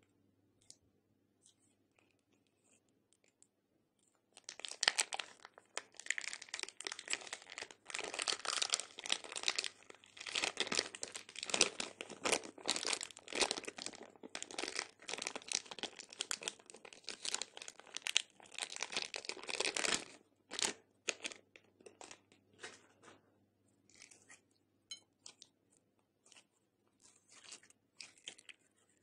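Clear plastic piping bag crinkling and tearing as it is peeled off sticky pink slime: dense crinkling from about four seconds in until about twenty seconds. After that, sparser clicks and pops as the slime is squeezed in the hands.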